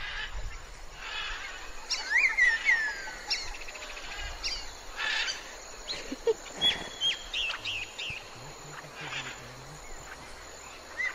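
Birds chirping and whistling in a series of short calls, some sliding down in pitch, over a steady outdoor background.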